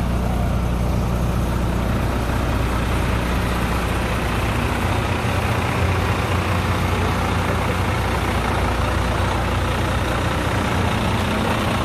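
Retired pumper fire truck's diesel engine idling with a steady low rumble.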